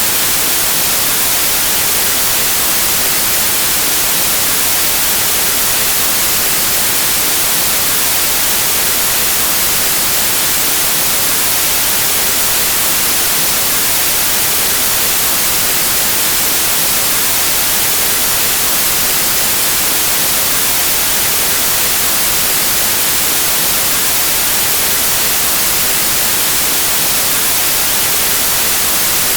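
Steady white noise: an even, unchanging hiss, loud and bright, with the most energy in the high frequencies.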